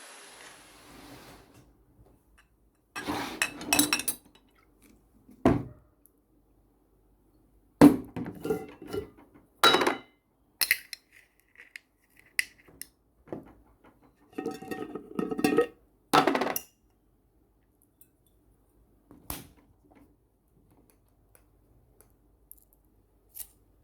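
Kitchen dishes and utensils clinking and clattering, in scattered short bursts with pauses between, a few of them louder clatters.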